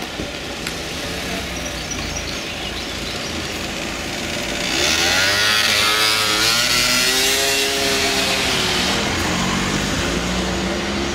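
A motor scooter passes close by, loud for a few seconds from about the middle, its engine note rising and then falling as it goes past. Steady street traffic runs underneath.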